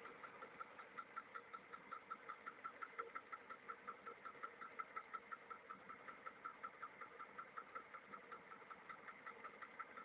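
VAZ-2103 (Lada) inline-four engine idling with a quick, even knock of about five or six short taps a second. It is an unidentified knock that the owner questions as possibly abnormal.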